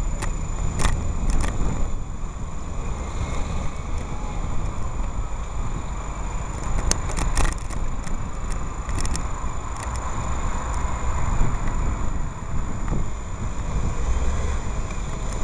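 Road traffic heard from a moving bicycle: a steady low rumble of vehicles and wind on the microphone, with a few sharp clicks and rattles scattered through and a faint steady high whine.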